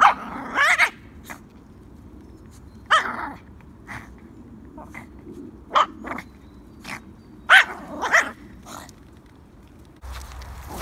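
Yorkshire terrier making short barking yaps in four bursts as it bites and tugs at a stick, the pitch of each call bending, with small sharp clicks between the calls.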